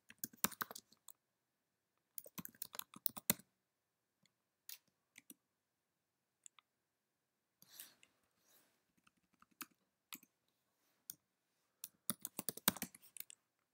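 Computer keyboard typing: quick bursts of key clicks as shell commands are entered, one burst at the start, another about two seconds in and a last one near the end, with a few scattered clicks in between.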